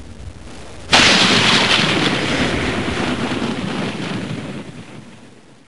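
A thunderclap from a cartoon sound track: a sudden loud crack about a second in, then a long fade over about four seconds.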